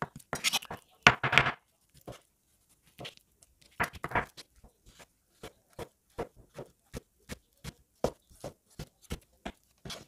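Chef's knife slicing raw chicken fillets on a bamboo cutting board: a louder cluster of cuts and handling in the first second and a half, then an even run of short knocks as the blade strikes the board, about two and a half a second.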